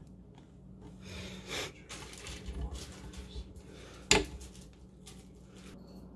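Handling of flat-pack cart panels and small metal screws and fittings: light metallic clinks and rustling, with one sharp loud click about four seconds in.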